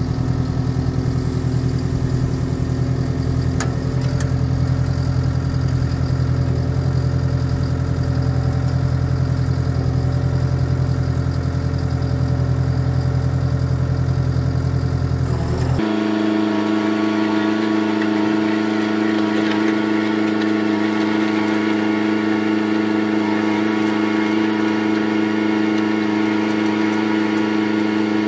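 JCB 330 skid steer's diesel engine running steadily while its hydraulic auger drills a post hole. About halfway through, the engine sound changes abruptly to a higher pitch.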